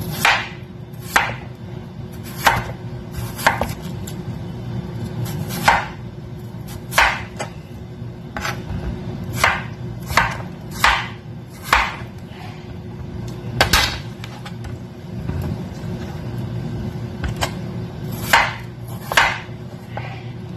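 Kitchen knife slicing raw potatoes on a plastic cutting board: sharp, irregular knocks, roughly one a second, as the blade goes through and strikes the board. A steady low hum runs beneath.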